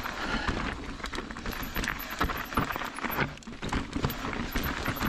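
Mountain bike rolling over a rough, rocky trail: tyres crunching on gravel and rock, with irregular knocks and rattles from the bike.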